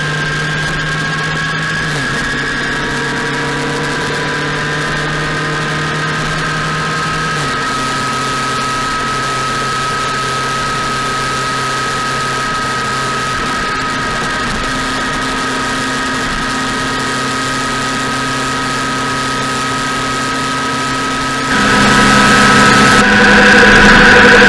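Motorcycle engine running at a steady cruising speed, a constant drone with a few small shifts in pitch. Near the end it becomes abruptly louder.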